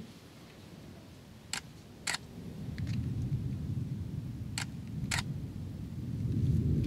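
Thunder rumbling from the storm, swelling about two and a half seconds in and loudest near the end. Two pairs of sharp camera shutter clicks, each pair about half a second apart, come before and during the rumble.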